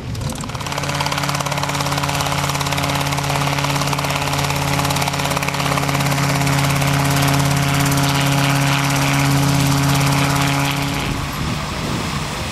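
Small light helicopter hovering low, its engine and rotors running with a steady, even tone. The sound stops abruptly about a second before the end.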